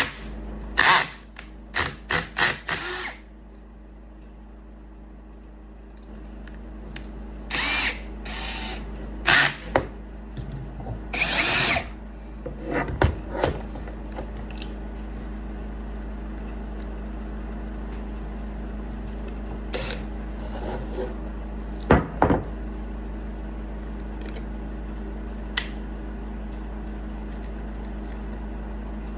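Electric power tool motor running steadily, getting louder about a fifth of the way in, with scattered sharp knocks and clatters in the first half and a couple more about three-quarters through.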